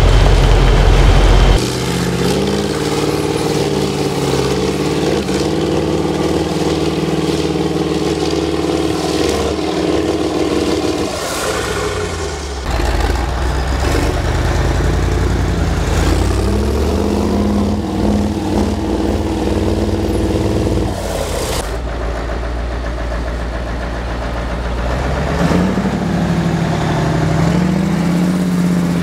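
Heavy off-road trial trucks' diesel engines labouring and revving as they climb through rough terrain, the engine note holding, then rising and falling. The sound jumps abruptly several times between different trucks or shots.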